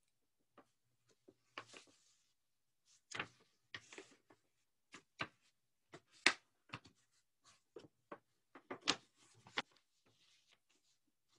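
A book and other props being handled: brief paper rustles with scattered light taps and knocks, the sharpest about three, six and nine seconds in.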